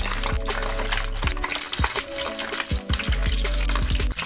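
Sausages deep frying in hot oil: a dense, steady sizzle and crackle of bubbling fat, with scattered sharp clicks.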